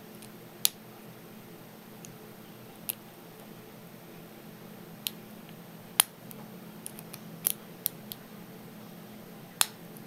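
Sharp, irregular metallic clicks as a short hook and tension wrench pick the spool pins of a brass euro cylinder lock, with the plug in a false set. About nine clicks come at uneven spacing; the loudest fall under a second in, about halfway, and near the end.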